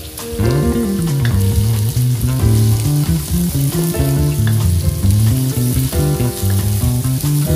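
Chopped onion sizzling in hot oil in a metal wok, stirred and scraped with a wooden spatula. Background music with changing notes plays throughout.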